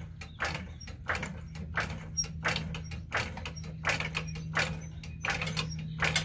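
Hydraulic floor jack being pumped by its long handle to raise a car, one stroke about every two-thirds of a second. A low steady hum runs beneath.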